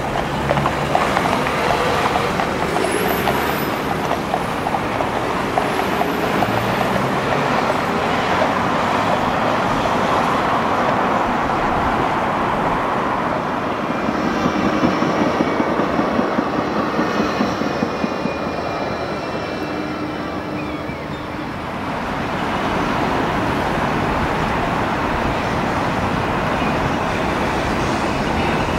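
Steady noise of road traffic and trams running, dipping briefly about two-thirds of the way through.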